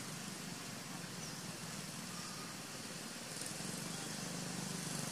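A steady low engine hum over an even outdoor hiss, growing a little louder near the end.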